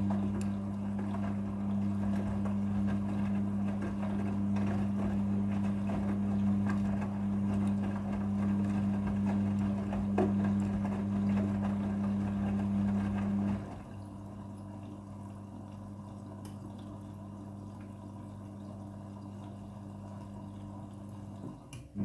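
Midea front-loading washing machine during its second water fill: a steady hum as the drum tumbles the wet clothes, with water running in. The hum stops about 14 seconds in and the drum pauses, leaving a quieter, even wash of water sound.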